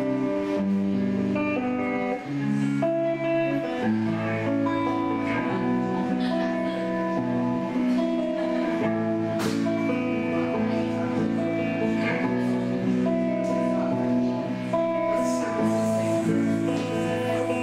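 Solo electric guitar played through an amplifier: held chords and ringing single notes that change every second or two.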